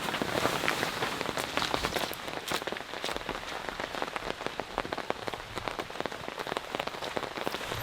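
Heavy rain falling steadily, with dense, sharp drop impacts on a surface close by.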